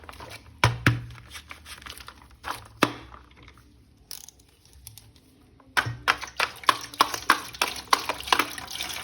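Hands handling a plastic toy and its packaging: scattered sharp plastic clicks and crinkling, a quieter pause in the middle, then a dense run of clicks.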